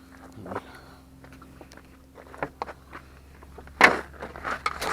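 Scattered small clicks and knocks from the door handle and lock parts being handled, with one louder rattle about four seconds in, over a faint steady hum.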